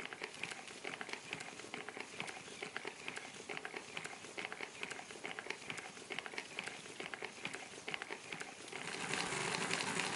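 Handmade miniature W-32 engine running, a rapid, dense clicking of its small mechanical parts. About nine seconds in, the clicking becomes louder and more continuous.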